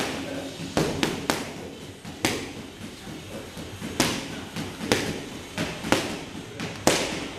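Boxing gloves smacking into focus mitts: sharp hits, singly and in quick doubles and triples, about a dozen spread unevenly.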